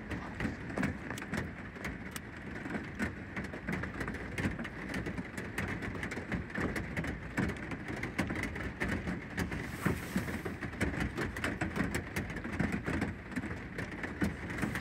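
Heavy pouring rain falling on a pickup truck's roof, heard from inside the cab: a steady, dense, uneven patter of many separate drop hits.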